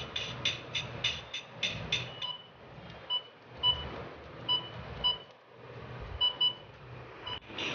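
Bigfun toy electronic keyboard playing a rhythmic built-in beat for about two seconds, which then stops, followed by a string of short electronic beeps as its buttons are pressed. A click comes near the end.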